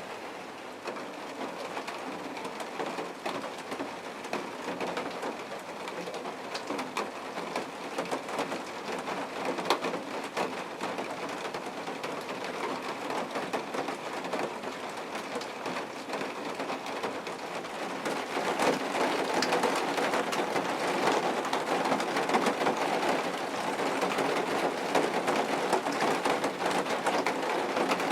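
Steady rain falling, with many individual drops ticking sharply on a nearby surface; it grows heavier and louder about two-thirds of the way through.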